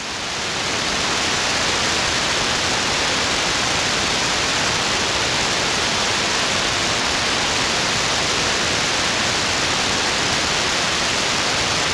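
Steady hiss of static from an SDRplay RSP1A receiver in AM mode on the 11-meter CB band, with no station on frequency. The hiss swells up over about the first second as the last transmission's signal drops away.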